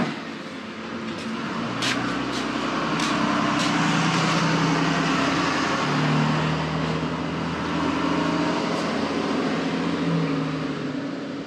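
A vehicle engine runs while a utility trailer rattles as it moves, with a few sharp clicks and knocks in the first few seconds. This is a test of whether the walk-behind mower, held by a wheel chock, stays put.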